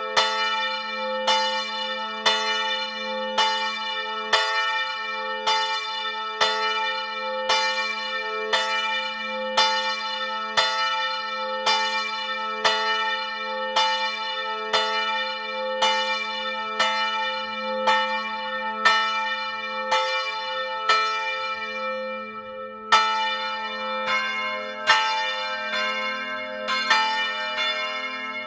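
Swinging church bell heard up close in its belfry, its clapper striking about once a second, with a long ringing hum between strokes. About 23 seconds in, a second, brighter bell joins, and the strokes of the two bells interleave.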